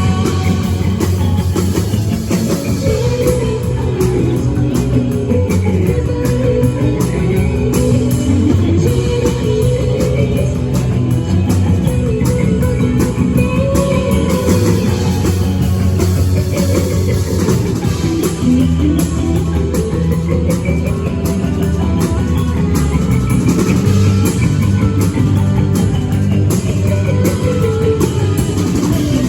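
Live band playing rock music, with guitar and drum kit and a melody line that winds up and down.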